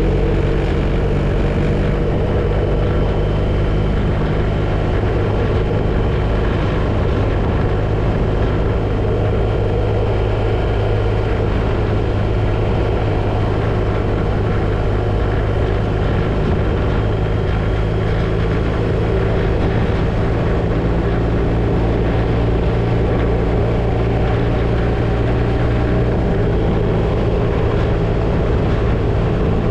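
BMW R1250RT motorcycle's boxer-twin engine running steadily at cruising speed, heard from the bike over steady wind and road noise. The engine note shifts slightly near the end.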